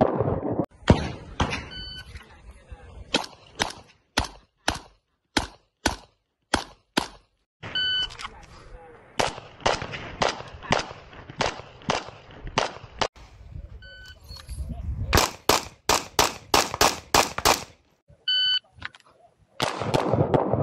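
Strings of pistol shots, some about two a second and a faster burst of several a second later on, broken by four short electronic shot-timer beeps.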